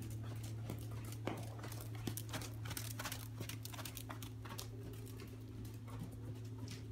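Hoofbeats of a ridden horse moving over soft sand arena footing: a quick run of dull thuds, over a steady low hum.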